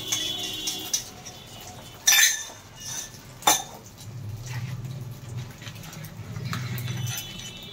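Kitchen clatter at the stove: a spice container rattling at the start, then two sharp metallic clinks about two and three and a half seconds in, followed by a low hum.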